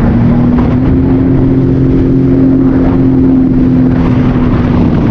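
Jet ski engine running at speed, its pitch stepping up slightly about a second in, holding steady, then easing just before the end.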